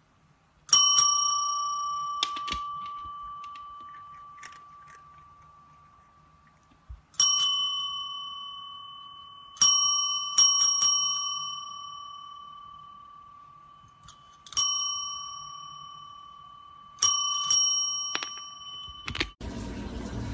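Metal service bell (desk bell) struck by a cat's paw: a bright ring about six times, some of them quick double taps, each left to ring and fade slowly.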